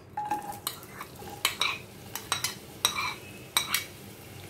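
A steel spoon clicking and scraping against a glass bowl and a nonstick pan as sliced onions are tipped into hot oil and spread out, about a dozen sharp, irregular clinks.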